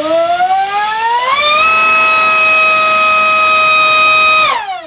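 Dr Mad Thrust 2870 3000kv brushless inrunner motor spinning a 4.75x4.75 propeller on a thrust stand. It makes a loud whine that rises in pitch as it throttles up over about a second and a half, holds a steady pitch, and falls as it spools down near the end.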